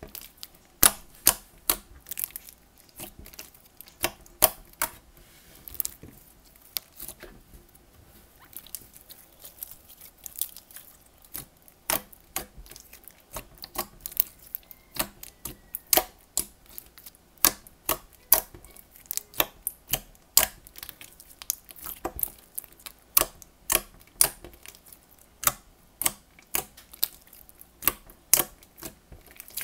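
Thick glossy slime being pressed, folded and stretched by fingers, giving sharp wet clicks and pops as trapped air pockets burst, irregular, about one to three a second.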